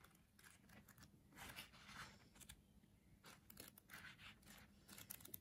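Faint rustling of paperback manga pages being flipped through by hand, with soft scattered page and handling sounds.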